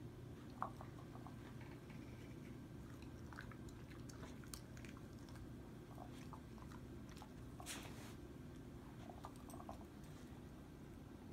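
Dog chewing treats it has worked out of a rubber Kong toy: faint, scattered crunches and clicks, with a slightly longer crunch about three-quarters of the way through.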